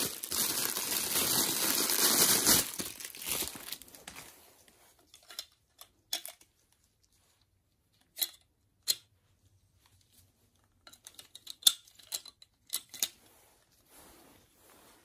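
Plastic packaging bag crinkling and tearing, loud for the first few seconds and then dying away. After that come scattered light clicks and taps of hard plastic parts being handled.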